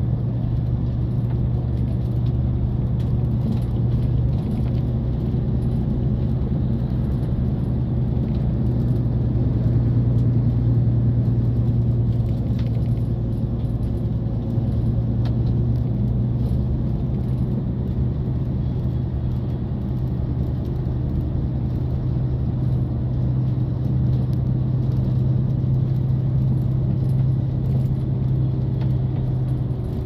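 Steady low drone and rumble of a moving vehicle, heard from inside its cabin.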